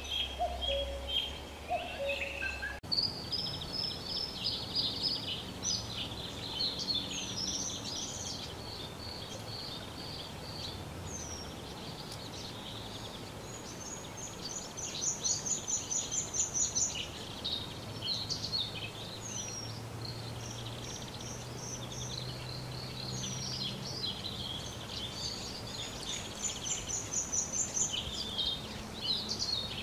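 Wild songbirds singing: a busy mix of high chirps, short whistles and quick sweeping notes, with two bursts of rapid high trills. In the first few seconds, different repeated calls end abruptly where the sound changes.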